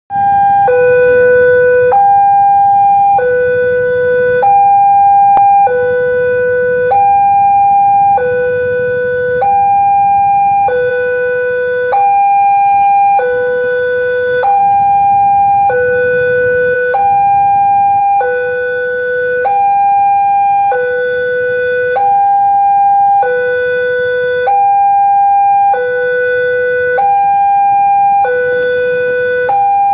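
Railway level-crossing warning alarm sounding its two-tone chime, a low and a high tone alternating, each held a little over a second, warning of an approaching train while the barrier is down. A low rumble of waiting traffic sits beneath.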